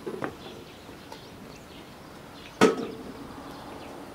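A single sharp knock about two and a half seconds in, with a few lighter knocks near the start.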